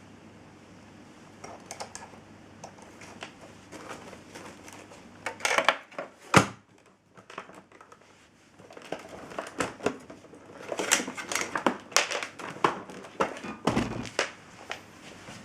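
Handling noises: crinkling rustles and scattered clicks and knocks, with one sharp knock about six seconds in and a dense run of clicks and rustles in the second half.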